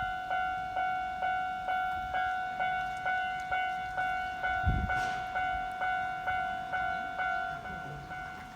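Japanese level-crossing warning bell ringing: a single pitched clang repeated steadily a little over twice a second, each strike fading before the next. A brief low thump about halfway through.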